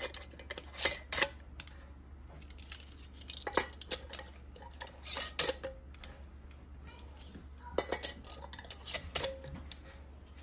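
Metal canning rings being screwed onto glass quart mason jars finger tight: short bursts of metal scraping and clinking on the jar threads and glass, about five times.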